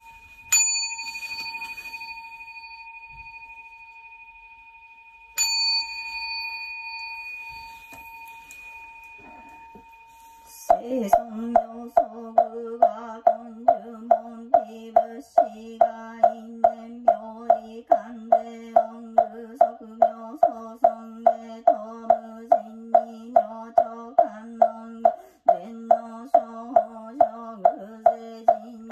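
Buddhist altar bell (orin) struck twice, about five seconds apart, each strike ringing on with a long fading tone. About ten seconds in, a monotone sutra chant begins over a steady wooden-knocker (mokugyo) beat of about two strokes a second.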